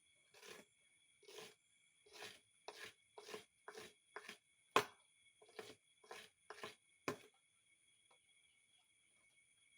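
A run of about eleven short knocks or taps, a little over one a second, the loudest about five and seven seconds in, then they stop. Steady high-pitched tones hum underneath.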